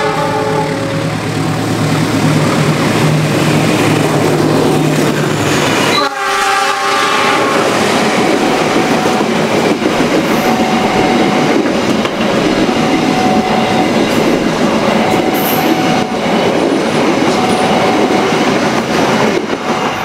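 Argo Parahyangan express train passing close by. Its locomotive horn sounds at the start and again about six seconds in, followed by the loud steady rush and clatter of its carriages going past.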